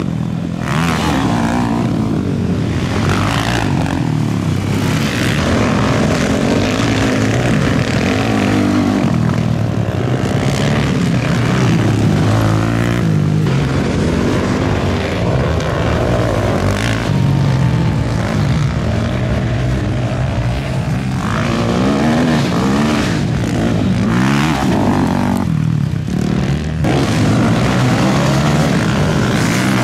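Several ATV engines racing, revving up and down over and over as the quads accelerate and back off.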